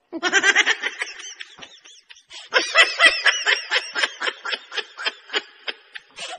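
A woman laughing, high-pitched, in a run of quick giggles. A burst comes in the first second, it goes quieter for a moment, then a long even string of short laughs follows at about four a second.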